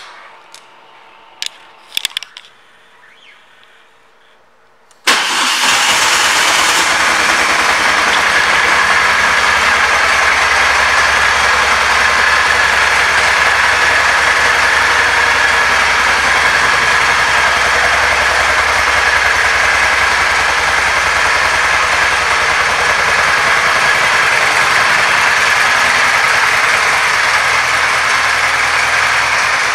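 A few clicks, then the Moto Guzzi Norge GT 8V's transverse V-twin engine starts about five seconds in and runs steadily at idle.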